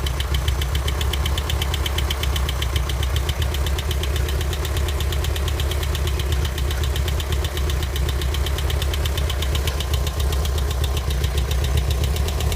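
1984 Volkswagen Vanagon engine idling with a rapid, steady, even knock. The knock appeared suddenly after the engine had run fine the day before, and its cause is unknown.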